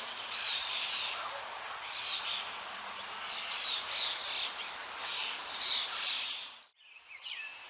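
Songbirds chirping repeatedly over a steady hiss of running water. Near the end the sound cuts out abruptly for a moment, then returns with a different bird's short, falling chirps.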